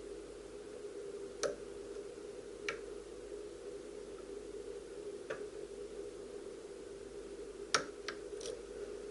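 Scattered small metallic clicks from a six-pin standard cylinder lock being handled with lock-picking tools, about six in all, with three close together near the end. A steady low hum runs underneath.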